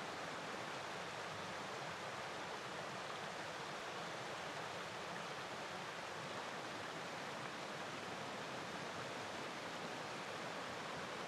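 Mountain stream running over rocks: a steady, even rushing of water.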